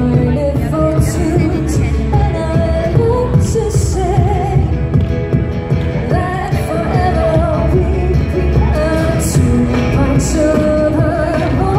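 A live pop band performing: voices singing a melody into microphones over acoustic guitar, played through the hall's speakers.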